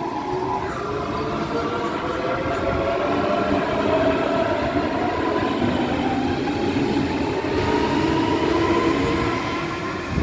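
DB Class 423 S-Bahn electric multiple unit pulling away from the platform: its traction motors give a whine of several tones that rises steadily in pitch as the train gathers speed, over the rolling noise of the wheels on the rails.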